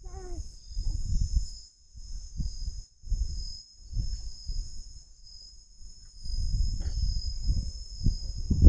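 A steady, high-pitched chorus of insects, with irregular low thumps and rumbles under it that grow heavier near the end.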